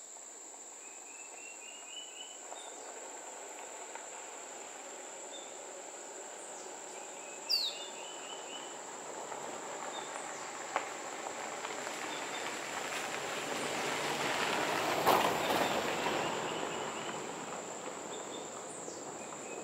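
An SUV approaches on a gravel road, its tyres crunching on the gravel and its engine running, loudest about fifteen seconds in as it passes and then fading. A steady high insect drone runs underneath, with a few short bird chirps.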